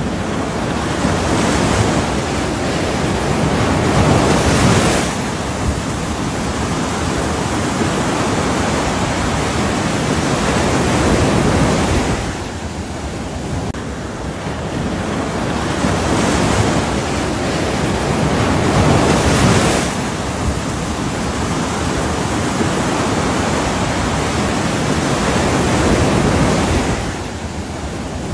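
Ocean waves: a steady rush of surf that swells and ebbs about every seven or eight seconds, four swells in all.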